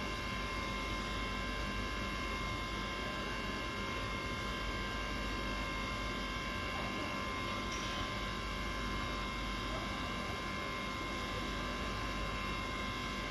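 A steady electrical hum with several faint, unchanging high tones and no change in level.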